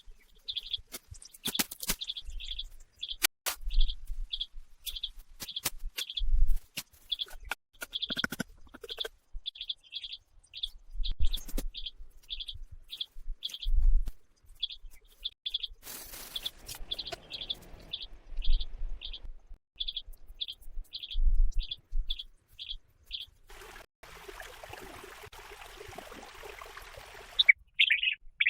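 A bird chirping over and over, a short high note about twice a second, with scattered knocks and low thumps. The chirping stops near the end, and a steady hiss runs for a few seconds in its place.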